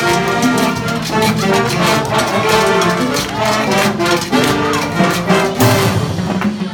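A jazz band's horn section, trumpets and trombones, playing a Latin-styled instrumental introduction over a steady beat.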